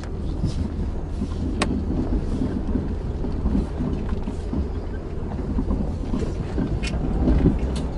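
Jeep engine running with a steady low rumble, with a few sharp clicks over it, about a second and a half in and twice near the end.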